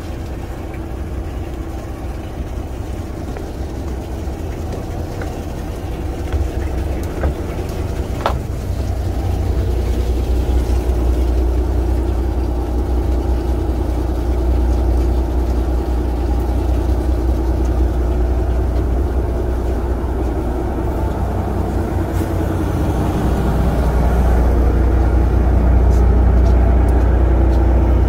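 A fishing boat's engine running with a steady low rumble, growing louder about ten seconds in and again near the end.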